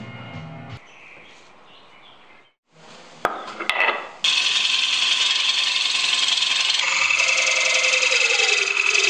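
Hand turning chisel cutting a segmented poplar blank spinning on a wood lathe: a loud steady hiss of cutting that starts about four seconds in, with a tone sliding lower in pitch near the end. Before it, a short stretch of low background music.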